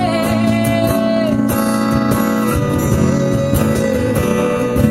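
Live acoustic band music with acoustic guitar playing between sung lines of a song. A held note that carries over from the last line ends about a second in.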